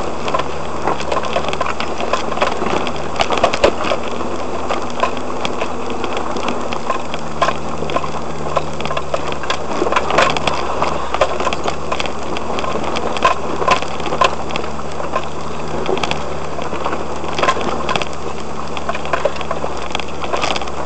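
Four-wheel drive crawling up a rocky dirt track, heard from inside the cabin: a steady low engine drone with frequent irregular knocks and rattles as the vehicle jolts over rocks and ruts.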